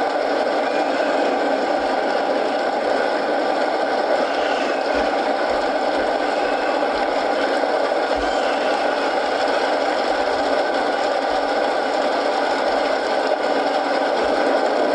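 Steady rain mixed with a crackling wood fire, an even, unbroken hiss with a few soft low thumps.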